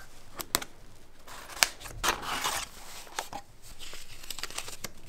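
A small folding knife slitting the seal sticker on a small cardboard product box, then the box being opened and its card and paper contents handled. Sharp clicks and scrapes come first, with a longer rustle about two seconds in.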